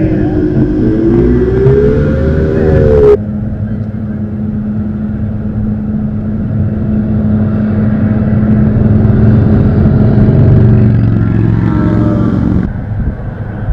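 Racing jet boat engines running flat out. In the first three seconds the engine note climbs in pitch as a boat closes in, then cuts off suddenly. A steady engine drone follows and swells as another boat runs under the bridge, its pitch dropping as it passes, before a second sudden cut near the end.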